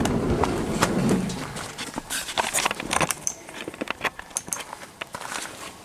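Footsteps crunching irregularly on snow, with a low rumble in the first second or so.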